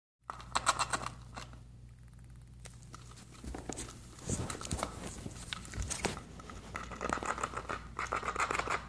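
Gray squirrel gnawing the cap and neck of a plastic soda bottle: rapid crunching, scraping clicks of teeth on hard plastic, in bursts near the start and again near the end, with a few dull thumps between as the bottle is moved.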